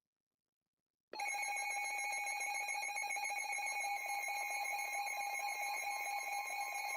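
Emergency Alert System attention signal: a steady, unbroken two-tone alert tone that starts abruptly about a second in, the signal that comes before a broadcast warning.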